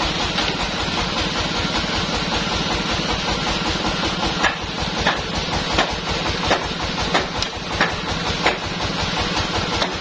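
Band sawmill's engine running steadily with an even low pulse. A series of about seven sharp knocks, roughly one every two-thirds of a second, comes in the middle.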